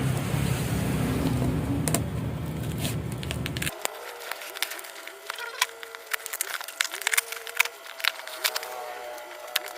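A cardboard box being opened by hand, its flaps, tape and packing crackling and clicking in quick irregular snaps. For about the first three and a half seconds a steady low hum sits underneath.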